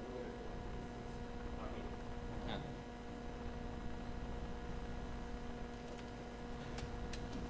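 Steady electrical mains hum picked up through the sound system, with a few faint short clicks about two and a half seconds in and again near the end.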